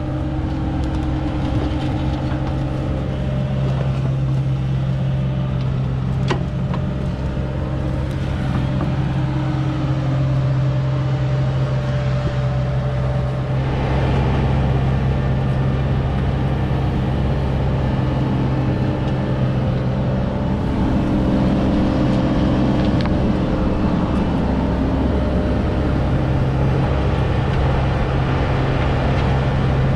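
Excavator's diesel engine running steadily under working load, a constant drone that grows a little louder about halfway through.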